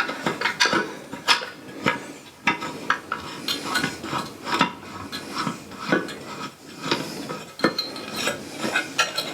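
Irregular metal clicks and clinks as a telescope tripod's accessory tray and its fittings are handled and fitted between the legs before being hand-tightened.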